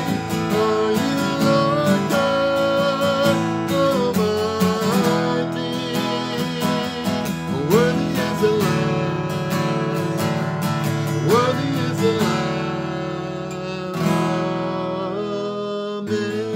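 Acoustic guitar strummed, with a man singing long held notes over it. His voice slides up into the note twice, about eight and eleven seconds in.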